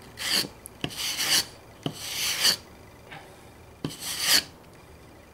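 Wire brush dragged through yucca leaf fibres on a wooden board, scraping the leaf flesh off the fibres: four rasping strokes.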